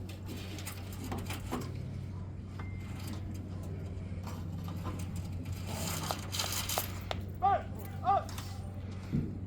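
Stands ambience before the band plays: a steady low hum under scattered crowd voices and small clicks, with two short rising-and-falling calls a little over half a second apart near the end.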